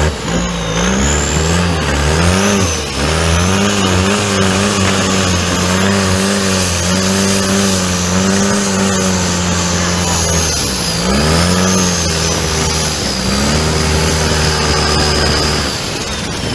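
Longtail racing boat's engine running hard under throttle, its pitch wavering up and down at first, then holding steady, dipping briefly about two-thirds of the way through and easing off near the end. A faint high whine sits above the engine.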